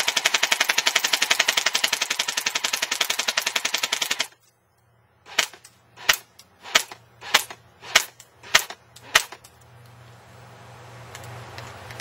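Airsoft gun firing a long full-auto burst of rapid, evenly spaced shots for about four seconds, then, after a short pause, seven single shots a little over half a second apart.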